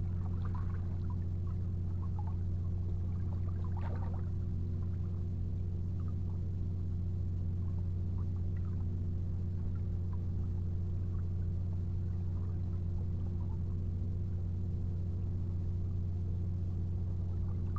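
A steady low hum made of several fixed tones, unchanging throughout, with a few faint clicks and scrapes in the first four seconds.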